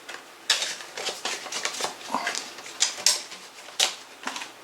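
A cracked plastic CD jewel case being handled and opened: a quick, irregular run of sharp plastic clicks and clacks.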